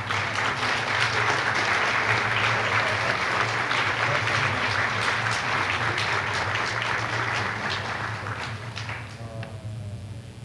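Audience applauding, the dense clapping fading away over the last couple of seconds.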